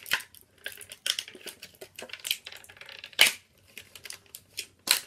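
Plastic toy packaging of a Skylanders Imaginators creation crystal being handled and pried open: irregular clicks, taps and crackles, with a sharper click about three seconds in and another near the end.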